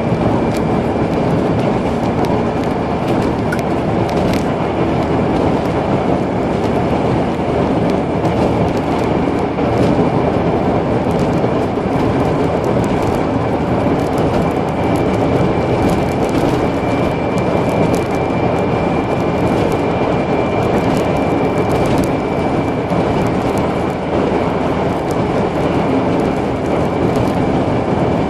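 Car driving along at a steady speed: engine and tyre and road noise, even throughout, with a faint steady high whine.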